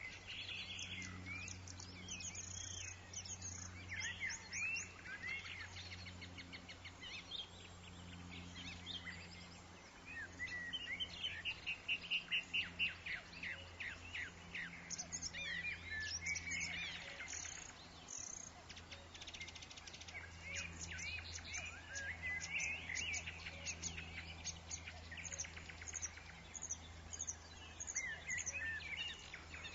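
Several woodland birds chirping and singing, with overlapping calls and trills, including a quick run of repeated notes about a third of the way in, over a steady low hum.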